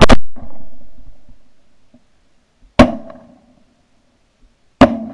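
Three 12-gauge shotgun blasts at close range: one at the start, one just under three seconds in and one about two seconds after that. Each is a sharp crack followed by a short echoing tail, the first tail being the longest.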